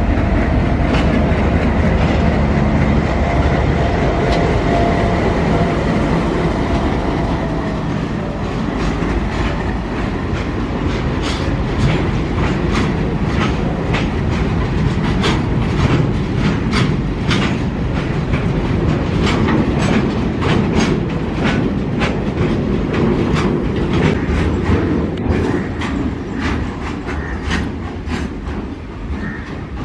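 Goods train passing close by: a diesel locomotive's engine rumbles as it comes through, then its wagons loaded with rails pass with a fast, steady clickety-clack of wheels over rail joints, starting about a third of the way in.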